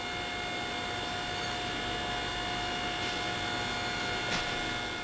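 A steady electrical-sounding hum with a constant high whine over a hiss, fading out near the end.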